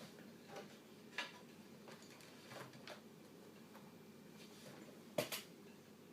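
Faint plastic clicks and knocks as a Compaq Evo N400c laptop is lowered onto its slice docking base, with a sharper double click about five seconds in as it seats.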